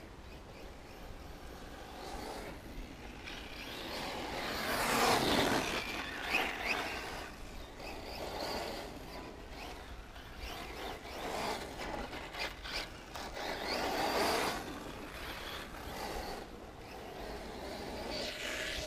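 Radio-controlled off-road car driving around a dirt track, its motor and tyres swelling louder as it passes nearer, most strongly about five seconds in and again near fourteen seconds, then fading as it moves away.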